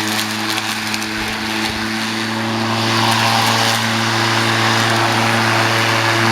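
Earthwise electric lawn mower running with a steady motor hum and blade whir, the hiss of cutting grass growing denser and a little louder about halfway through.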